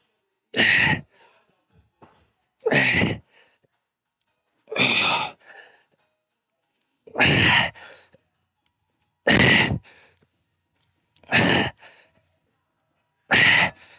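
A man's hard, forceful exhales, one short breath about every two seconds, seven in all, paced with the reps of a single-leg dumbbell Romanian deadlift.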